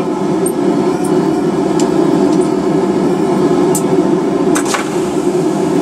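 A blacksmith's forge running with a steady low rush, with a few light metallic clicks a couple of seconds apart near the middle.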